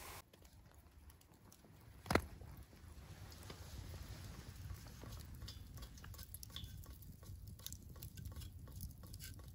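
Faint, irregular crackling and pattering from a snow-melting rig over a campfire: a cloth of snow hung above glowing coals. There is one sharp click about two seconds in.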